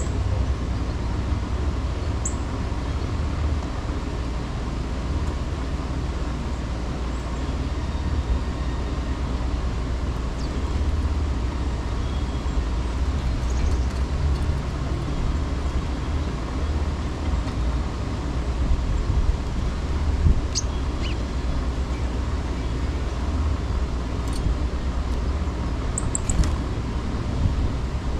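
Steady low rumble of wind on the microphone mixed with city traffic. A few short, high bird chirps come through now and then, with a cluster near the end.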